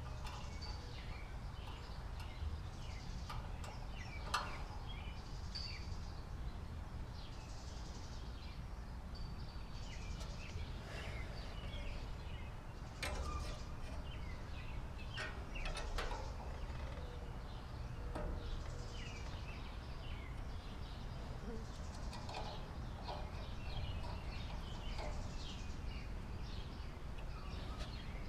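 Birds chirping and calling on and off, over a steady low rumble, with a few sharp clicks.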